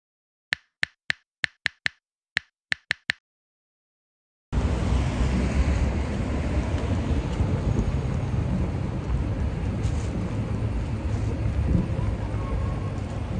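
About ten short, high electronic blips in two quick runs, a loading-screen sound effect. After a pause about four and a half seconds in, a loud, steady rush of wind buffeting the microphone outdoors, with street noise under it.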